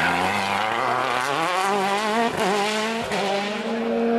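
Citroën DS3 WRC rally car's turbocharged engine pulling hard out of a smoky, wheelspinning slide, its pitch climbing steadily with two brief dips along the way, then held steady near the end.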